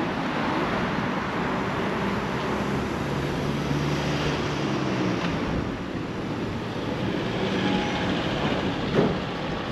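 Street traffic noise, with a vehicle engine running close by, giving a steady low hum. A single short knock about nine seconds in.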